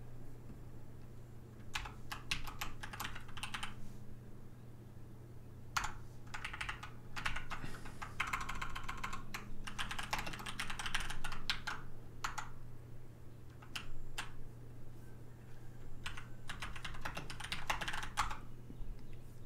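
Typing on a computer keyboard, rapid keystrokes in bursts of one to several seconds with short pauses between them.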